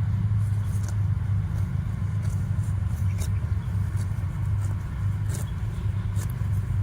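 Steady low rumble, with a few faint ticks over it.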